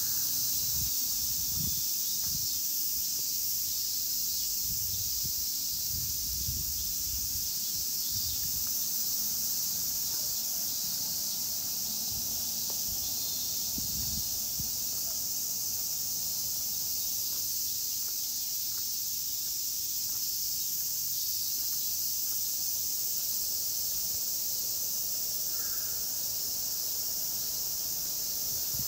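Cicadas droning in a loud, steady, high-pitched chorus. Low thumps come and go in the first several seconds and again about halfway through.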